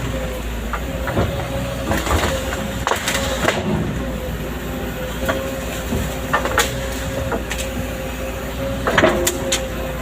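Excavator at work: its diesel engine runs steadily under a constant high whine, with irregular metallic clanks and knocks from the machine.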